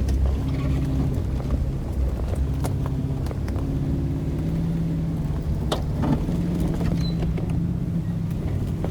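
Vehicle engine running as it drives along a rough dirt track, its pitch rising and falling as the engine speed changes, with scattered knocks and rattles.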